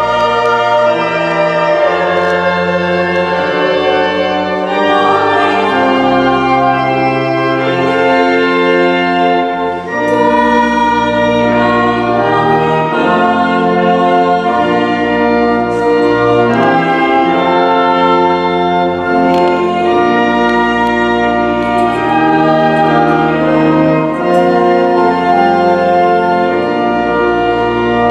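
Organ music: held chords that change every second or two, with no break.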